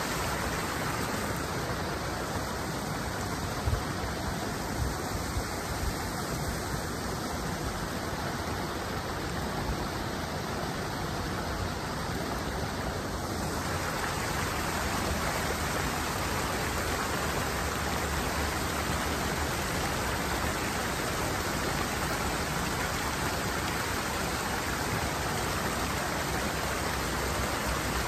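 Steady rush of water pouring over a small waterfall into a stream, its tone shifting abruptly about halfway through, with a few light knocks early on.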